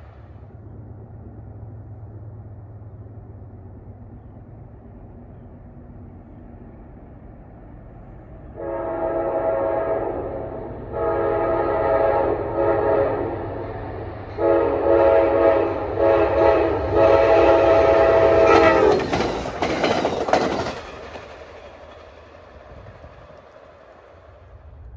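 Train approaching with a low rumble, then its multi-chime horn sounds four blasts, the first three separated by short breaks. The train then passes close by with a loud rush of wheel and engine noise that dies away.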